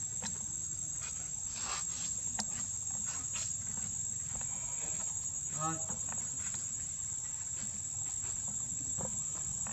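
Steady high-pitched drone of insects. About halfway through comes one short pitched animal call, and there are a few faint light clicks.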